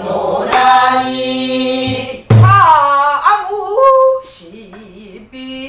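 Female voices singing a Namdo folk song (minyo) in Korean traditional style, with long held notes and wide vibrato. A buk barrel drum is struck twice, about half a second in and just after two seconds; the second stroke is a deep thud. The last wavering note is quieter.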